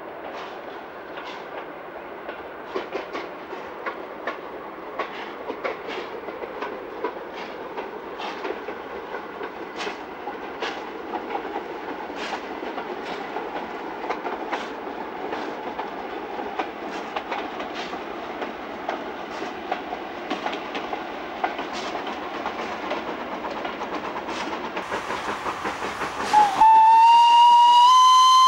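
Steam tram locomotive No. 808 running with a hauled van and wagon: a steady rush of running noise with frequent sharp clicks. Near the end its steam whistle sounds one loud note, gliding up briefly at first and then held steady.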